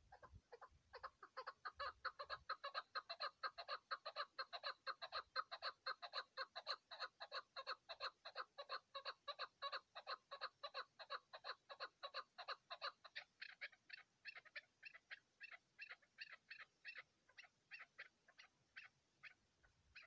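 Chukar partridge calling: a long rapid series of clucking "chuk" notes, about four or five a second. The notes start about a second in, grow weaker after about two thirds of the way, then slow and fade near the end.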